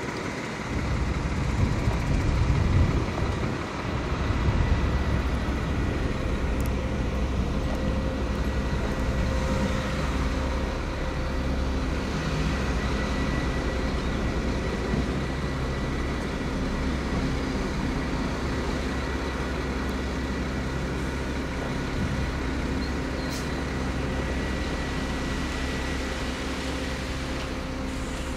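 Heavy construction machine's diesel engine running steadily, with a thin steady high whine over its low drone; it is louder for the first few seconds.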